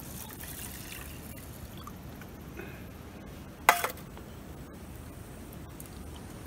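Water poured from a stainless steel cup into a metal camping pot of rice, a splashing trickle in the first second or so. A single sharp knock about halfway through.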